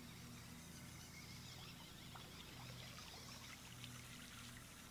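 Faint water splashing and dripping at the side of a boat, a scatter of small patters through the middle and end, over a low steady hum.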